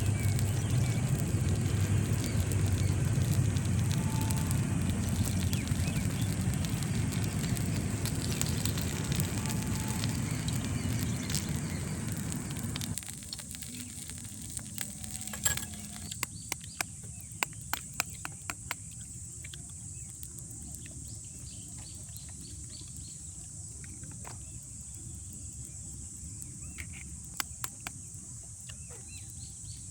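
Wood cooking fire burning: a loud steady rush for about the first thirteen seconds that cuts off suddenly, then quieter scattered crackles and pops.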